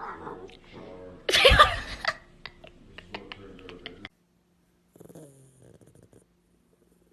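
A pet animal's vocal call, loudest about a second and a half in, followed by a run of light clicks or taps. After a short gap there is another brief pitched call.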